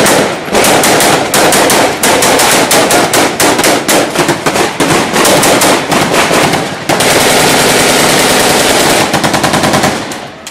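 Automatic gunfire at close range: rapid bursts of shots, then from about seven seconds in an unbroken rattle of fire lasting a couple of seconds, and a few last shots that fall away near the end.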